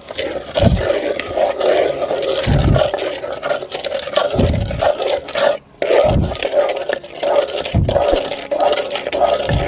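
A wooden spoon stirring thick rice-flour batter in an unglazed clay pot: continuous wet scraping and squelching against the pot wall. A low thump comes with each stroke, about every two seconds, and there is a brief pause just before the middle.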